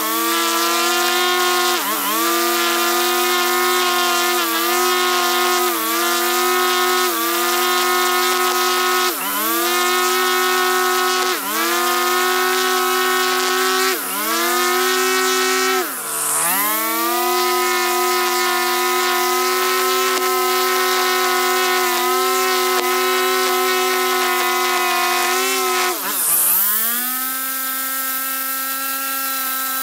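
String trimmer running at high speed while cutting the grass edge along a concrete path. Its pitch drops and climbs back up each time the throttle is eased off and squeezed again, about eight times, and near the end it runs on steadily, a little quieter.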